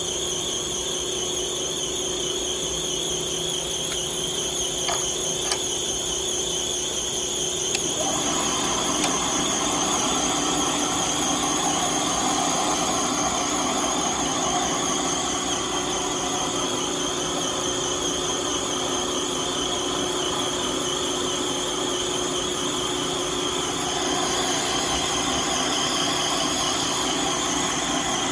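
Metal lathe running with a steady whine while boring a rod; a couple of clicks come about five seconds in, and a rougher, louder cutting noise joins at about eight seconds.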